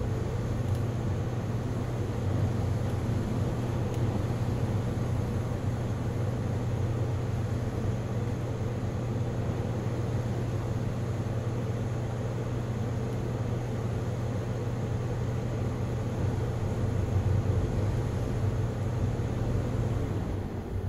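Steady rush of storm wind and rain, with a low rumble underneath that does not let up.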